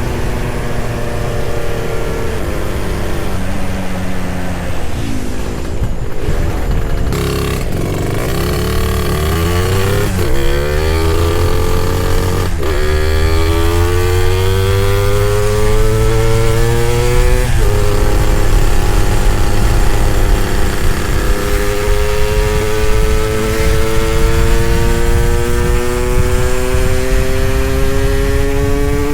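Suzuki Satria two-stroke single-cylinder motorcycle engine pulling hard under way, its pitch climbing as it revs up through the gears, with sudden drops in pitch at the gear changes about twelve and seventeen seconds in, then a long slow climb. Wind and road noise run underneath.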